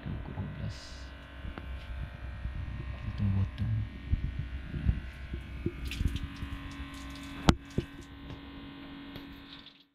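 Steady mechanical drone of a wooden fishing boat's engine running, with scattered knocks on the hull and deck and one sharp knock about seven and a half seconds in. The sound cuts off abruptly just before the end.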